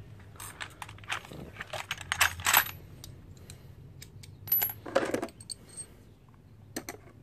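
Metal hand tools (sockets, pliers, wrenches) clinking and rattling against each other in a toolbox tray as a hand rummages through them. A string of separate clinks, a few of them ringing briefly.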